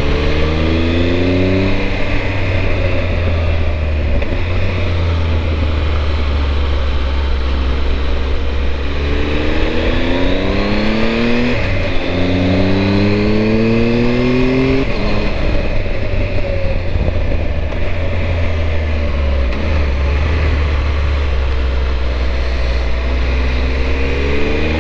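Triumph Tiger 1200's three-cylinder engine pulling up a hairpin climb: its note rises in pitch under acceleration and drops at gear changes, three times in the first fifteen seconds, over a steady low rumble.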